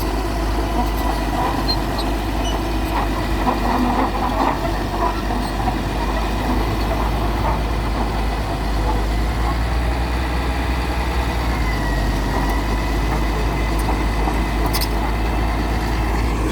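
A large engine running steadily with a deep, even rumble.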